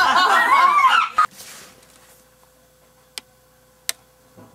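Boys' high-pitched, honking, shrieking laughter in quick bursts, cut off abruptly about a second in. It is followed by a faint steady hum with two sharp clicks.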